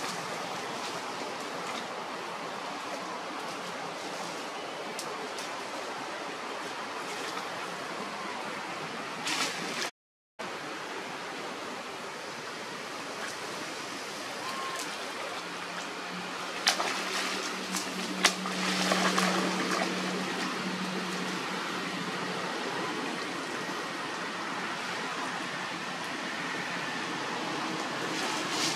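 Steady rush of running water. The sound drops out briefly about ten seconds in, and a few sharp clicks and a low hum come in around the middle.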